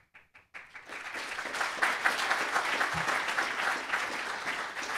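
Audience applauding: a few scattered claps, then dense, steady clapping from about half a second in.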